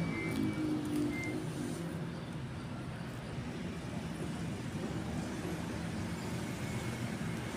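A motor vehicle's engine running with a steady low rumble. A few short high chirps sound in the first second or so.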